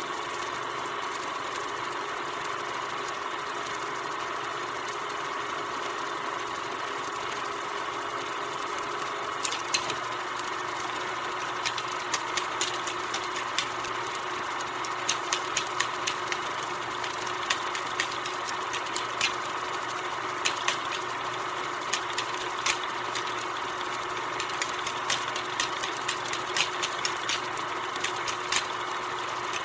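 16 mm film projector running steadily: a continuous mechanical whir with a steady hum and tones. Irregular sharp clicks are scattered over it, more frequent from about ten seconds in.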